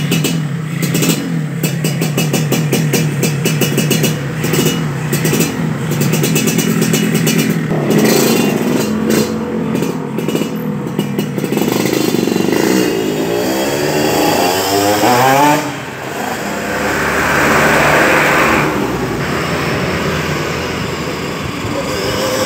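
Yamaha RX-King two-stroke single on a chrome aftermarket exhaust, idling and blipped repeatedly with a crisp, crackling exhaust note. About twelve seconds in it pulls away, its pitch rising and falling as it accelerates through the gears and fades, and other street traffic passes after it has gone.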